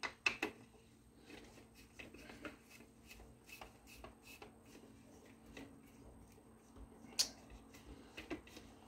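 Faint, scattered clicks and taps of hands handling the circular saw's parts and tools during disassembly, with a sharper click about seven seconds in. A faint steady hum runs underneath.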